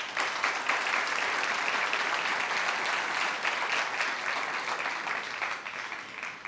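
A large audience applauding, steady clapping that thins out near the end.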